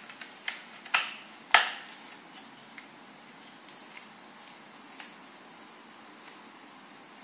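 Plastic concentrator nozzle being pushed and snapped onto the barrel of a Philips HP4935 hair dryer: a few light knocks, then two sharp clicks about a second and a second and a half in, the second the loudest, and one more small click near the five-second mark. The dryer is switched off.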